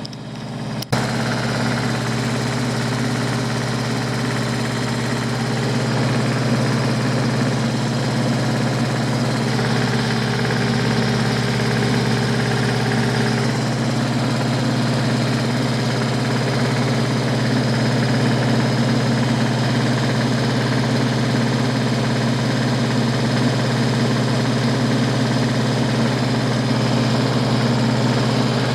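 Small diesel tractor engine running steadily, with a brief drop and a click about a second in.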